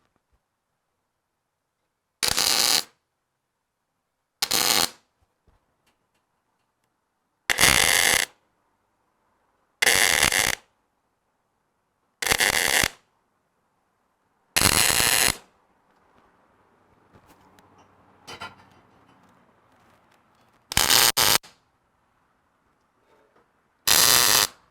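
A welder laying short stitch welds on a bumper stiffener. There are eight brief bursts of welding arc crackle, each under a second, most of them about two and a half seconds apart. A longer pause comes in the middle and a quick double burst near the end.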